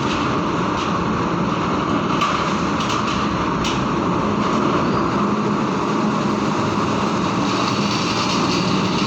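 Heavy tronton truck's diesel engine running steadily with a low hum, with a few short clicks or knocks about two to four seconds in.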